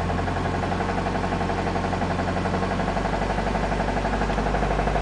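1989 Honda Accord LXi's 2.0-litre four-cylinder engine running at about 1500 rpm with a rhythmic knock, getting slightly louder over the second half. The knock is rod knock from the number 3 connecting rod, whose bearing has excessive clearance on the crank journal because its end-cap bolts have stretched.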